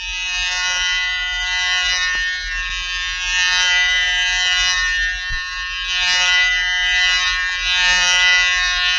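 Droning electric buzz sound effect: one steady, unbroken buzzing tone rich in overtones over a low rumble, swelling slightly in loudness now and then.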